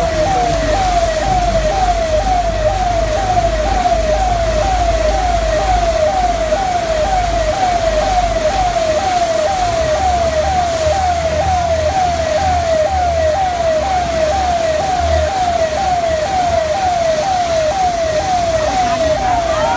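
Siren sounding a fast, repeating wail of about two pitch sweeps a second, over a steady rushing noise.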